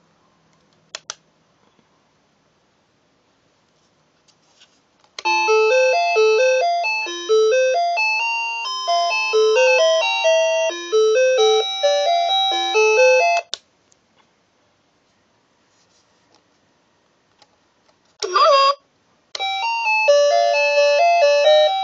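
Music alarm clock's electronic chime melody, a simple stepping tune played for about eight seconds, stopping, then starting again near the end. Two light clicks come about a second in, and a short wavering tone sounds just before the tune restarts.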